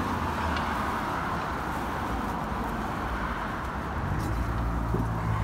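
Street traffic going by: a steady wash of road noise, with a vehicle's low engine hum rising about four seconds in.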